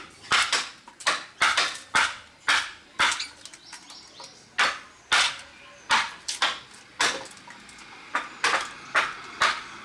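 A wood chisel struck again and again to cut into a block of wood: sharp knocks about two a second, with two brief pauses partway through.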